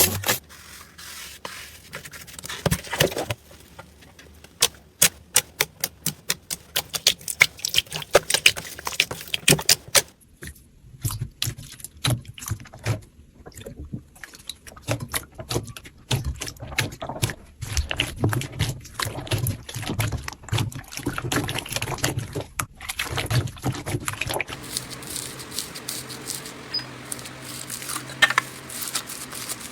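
Slime being squeezed and worked, with runs of quick sticky clicks and pops and a softer crackle near the end.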